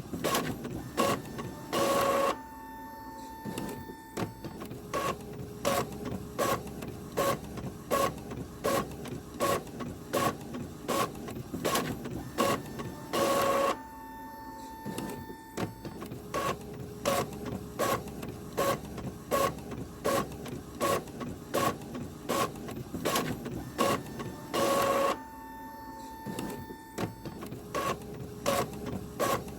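Printer running continuously: a regular clicking about twice a second, with a louder whir roughly every 11 seconds followed by a few seconds of steady motor hum, repeating as it works through pages.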